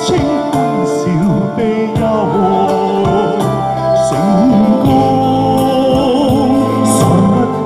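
A man singing into a handheld microphone over instrumental backing music, both amplified through a PA loudspeaker and recorded right in front of it.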